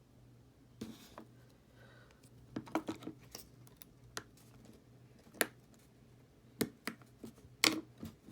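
Scattered sharp clicks and taps of a small phone and hand tools being handled on a work surface, over a faint steady low hum.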